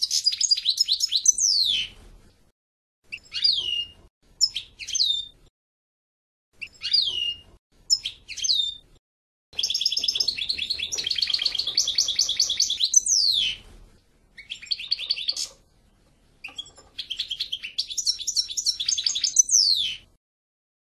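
A European goldfinch singing: phrases of fast twittering trills and sharp down-slurred notes, separated by short pauses. The longest phrase, about four seconds, falls near the middle.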